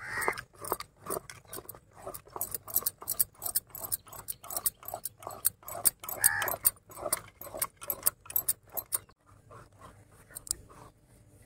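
Spoon knocking and scraping against a mixing bowl as biscuit cake batter is stirred while milk is added, a steady run of about four knocks a second that dies away about nine seconds in.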